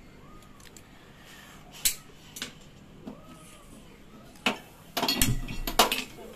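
Kitchen handling sounds around a stainless steel bowl and gas stove: a few sharp clicks and taps, then a cluster of loud knocks and rattling about five seconds in.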